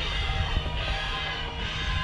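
Background music with steady held tones over a low rumble.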